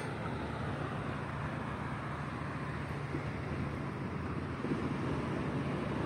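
Steady wind noise on the microphone over a low, even hum.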